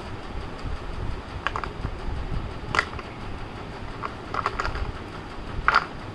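Light plastic clicks and taps from a small blue plastic box being handled and its lid worked, coming a few at a time with the loudest near the end, over a steady low background rumble.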